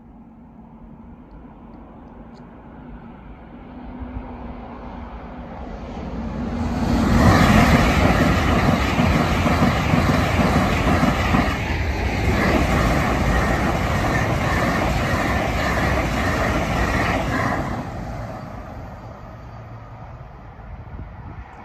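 LNER Class 801 Azuma electric train passing the level crossing at speed. Its rush builds over a few seconds, stays loud for about ten seconds with a steady whine in it, then fades away.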